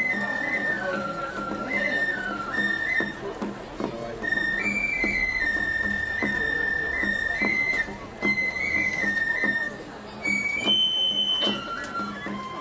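Japanese festival hayashi music: a high transverse bamboo flute playing a stepping melody over sharp percussion strikes.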